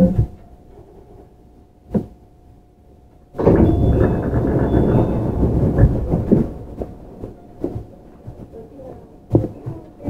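Inside a JR Central 315 series electric train: a faint steady hum with a single click about two seconds in, then a sudden loud rush of noise about three and a half seconds in that dies away over a few seconds, followed by scattered knocks.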